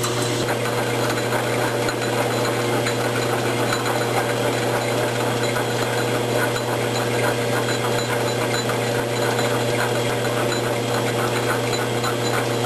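Logan metal lathe running steadily while a parting tool cuts a relief groove in the spinning workpiece: a constant machine hum with a fine, even cutting rasp.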